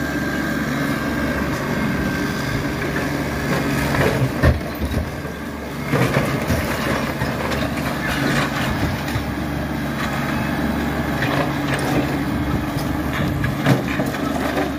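Compact tractor engine running under load as its front loader pushes into an old wooden and brick building, with wood cracking and debris knocking as the structure gives way. The engine note drops away briefly about five seconds in, then comes back.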